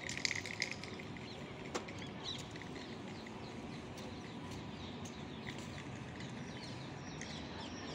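Faint outdoor background of small birds chirping on and off over a steady low hum, with a few soft clicks in the first second.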